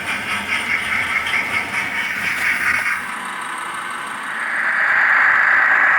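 Model steam locomotive's DCC sound decoder playing through the loco's small speaker: quick, even exhaust chuffs, then a steady steam hiss that swells about four seconds in and holds.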